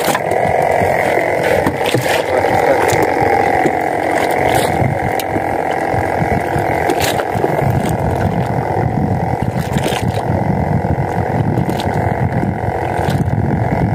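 Small fishing boat's engine running steadily, mixed with wind and water noise and a few sharp clicks.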